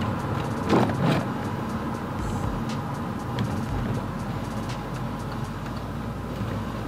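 Steady road and engine noise inside a moving car, with two short thumps about a second in.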